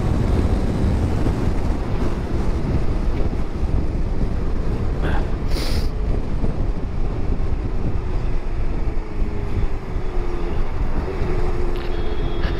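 Motorcycle riding at road speed, with heavy wind rush on the microphone over a steady engine hum. The engine's pitch eases down slightly about two-thirds of the way through, and a brief hiss passes around the middle.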